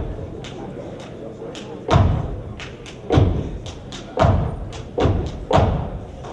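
Steppers performing a gumboot dance: heavy foot stomps on a stage floor, five big ones from about two seconds in, unevenly spaced, with lighter sharp slaps and taps between them.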